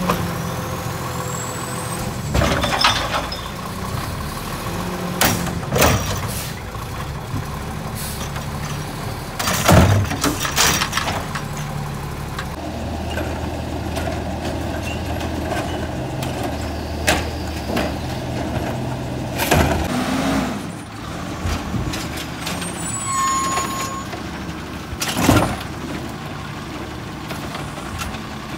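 Natural-gas automated side-loader garbage trucks running, their arms lifting and tipping carts into the hopper. About half a dozen loud bangs and clatters as carts and trash hit the truck body.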